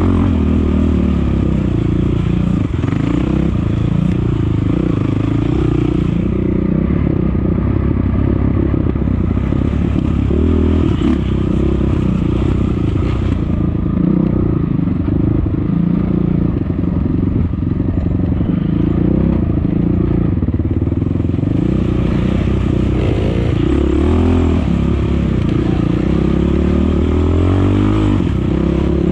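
Off-road motorcycle engine running hard under load, its pitch rising and falling over and over with throttle and gear changes.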